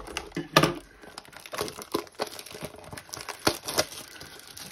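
Plastic shrink wrap crinkling and tearing as it is pulled off a cardboard trading-card box, a quick run of sharp crackles.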